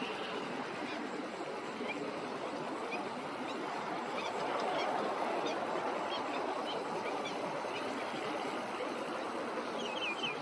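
Birds calling in short, scattered chirps, with a quick run of louder calls near the end, over a steady rushing background noise.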